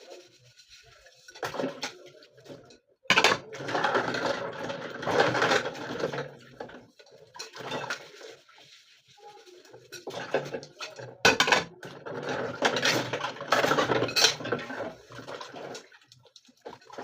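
Dishes and cutlery clattering and clinking as they are handled, with sharp knocks, in two busy spells a few seconds long.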